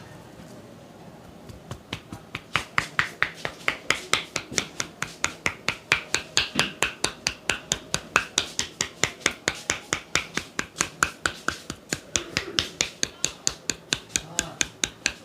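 A barber's hands striking in quick percussive massage strokes: a fast, even run of sharp slaps, about five a second, starting about two seconds in, with a brief break about three-quarters through.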